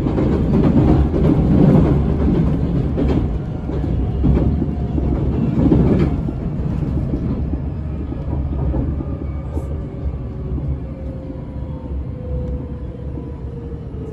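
Running noise inside a JR Shikoku 8000 series express car: wheels rumbling on the rails, with a few clacks in the first half. From about halfway, the motor whine of the car's Toyo Denki hybrid SiC VVVF inverter comes through as a thin tone slowly falling in pitch, while the overall noise eases as the train slows.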